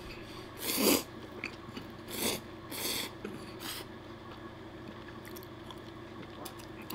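A person slurping up spaghetti: four short slurps in the first four seconds, the first, about a second in, the loudest.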